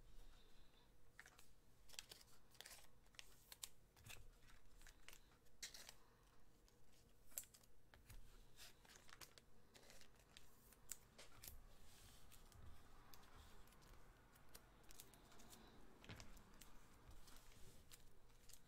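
Faint irregular clicks, taps and crinkling from hands handling packaging at a desk.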